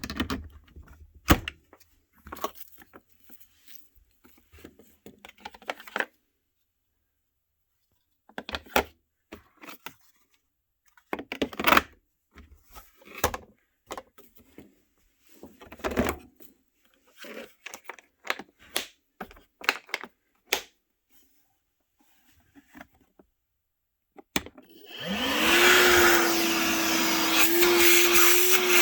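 Scattered clicks and knocks from something being handled, with silent gaps. Near the end a Milwaukee M12 Fuel cordless wet/dry vacuum's brushless motor switches on: it spins up in under a second to a steady high whine over a loud rush of air.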